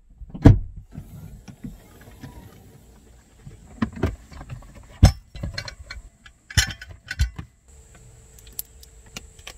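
Camping cookware being handled: clicks and knocks of a clear plastic case's latches and lid, and a stainless steel kettle and portable gas stove being set down. There are a dozen or so separate knocks, the loudest about half a second in and about five seconds in.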